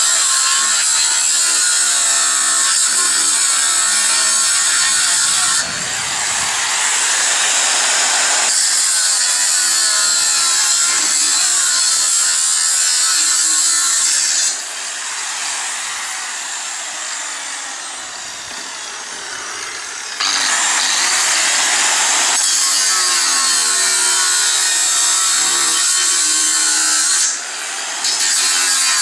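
Angle grinder cutting into 6 mm steel plate: a steady, loud, hissing grind with a strong high edge. The level drops briefly a few times and falls off for a longer stretch in the middle before the full cut resumes.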